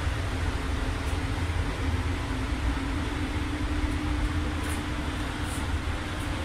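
Paint spray booth ventilation running: a steady rush of moving air with a deep rumble and a constant hum.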